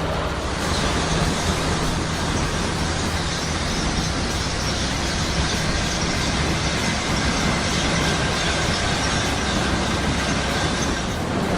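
Potato-harvesting machinery running steadily: a low engine drone with an even hiss over it. The sound changes abruptly about half a second in and again near the end.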